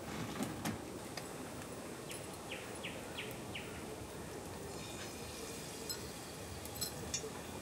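Batter dropped into hot oil in an aluminium pot over a wood fire, the oil sizzling and crackling more densely from about five seconds in. A bird gives four short falling chirps about halfway through, over a steady background hiss.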